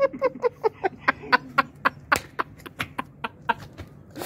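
A rapid, even run of sharp clicks or ticks, about four to five a second.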